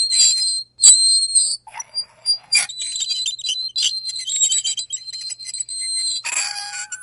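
Fork scraping across a plate: high-pitched squeals held for a second or so at a time, broken by short scratchy strokes. A lower-pitched squeal comes near the end.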